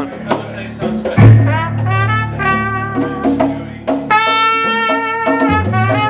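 Trumpet playing a phrase of short melodic notes, then holding one long note for about a second roughly four seconds in. A deep bass note sounds underneath at times.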